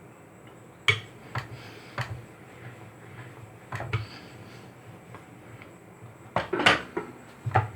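Rolling pin working on a rolling board as paratha dough is rolled out: irregular clacks and knocks, the loudest cluster a little over six seconds in.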